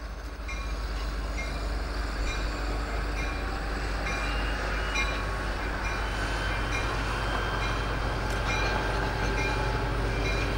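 Amtrak Talgo passenger train hauled by a diesel locomotive, passing at low speed: a steady rumble of engine and wheels on the rails, with short high-pitched ticks recurring through it.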